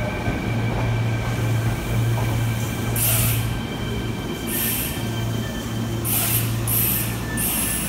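Kintetsu 9820-series electric train slowing into a station. Its Hitachi IGBT VVVF inverter gives a steady high whine over a low hum. From about three seconds in come five short, sharp hisses of air, as the air brakes take over: this series has no all-electric braking down to a stop.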